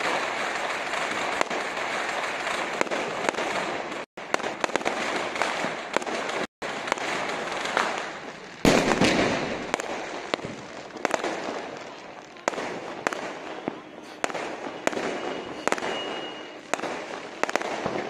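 Fireworks going off: a dense, continuous crackle of many small bursts, cutting out briefly twice, then a deep boom about nine seconds in. After that, separate sharp bangs come roughly a second apart over a fading crackle.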